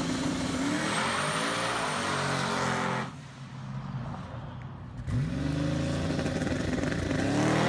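GMC Typhoon's turbocharged 4.3-litre V6 revving and accelerating hard, its pitch rising and falling through several pulls. The sound drops away sharply about three seconds in and comes back with a fresh rising run about two seconds later.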